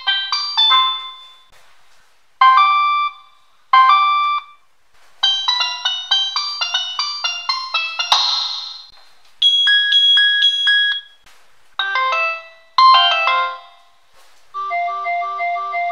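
Android Jelly Bean ringtones played on a Nokia 3220 mobile phone as bright, chiming polyphonic melodies. Short phrases come one after another with brief pauses between them. A short noisy swish comes about halfway through, and a fast pulsing repeated pattern begins near the end.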